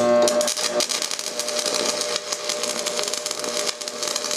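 Stick (shielded metal arc) welding arc tack-welding a steel pipe to a flange. It strikes abruptly with a brief tone, then crackles steadily.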